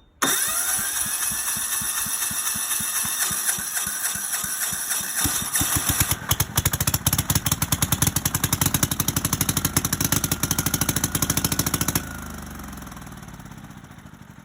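Small diesel engine running, its speed climbing over the first couple of seconds, then a clear, steady firing beat. About twelve seconds in it is shut off and winds down, the pulses slowing and fading.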